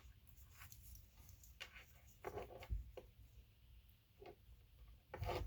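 Faint rustling, scraping and small clicks of a leather lace and leather pieces being handled and threaded. A few short, louder pitched sounds come about halfway through and again near the end.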